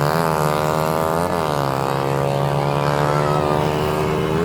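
A passing bus making a loud, steady drone of many tones over a strong low hum. The pitch swoops up and back three times: at the start, about a second in, and near the end.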